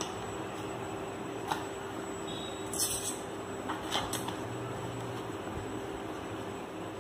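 Newspaper paper bag being handled, giving a few short crinkles and taps of paper about a second and a half in and again around three to four seconds in. A steady room hum runs underneath.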